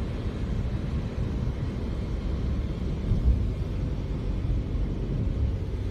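Cabin noise of a car being driven: a steady low rumble of engine and tyres on the road, with one brief louder low thump about three seconds in.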